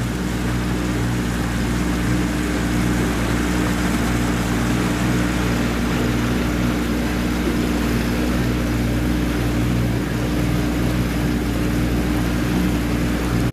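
Boat engine running at a steady speed under way, a constant hum with a rushing wash of water and wind noise over it.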